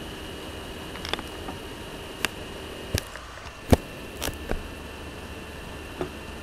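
Steady background hum and hiss of room noise, broken by a handful of short sharp clicks, the loudest about three and a half seconds in.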